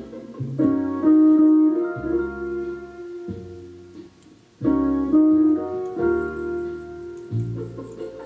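Piano playing slow, sustained chords in two phrases, with a short pause about four seconds in.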